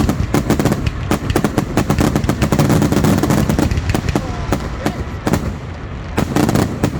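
Fireworks grand finale: a rapid, dense barrage of aerial shell bursts and crackles, many reports a second, thinning slightly toward the end with a last cluster of bangs near the end.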